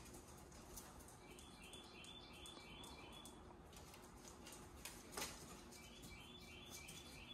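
Quiet room with faint clicks and scuffs of dogs' claws on a tile floor and a sharper knock about five seconds in. A faint quick run of high chirps comes twice.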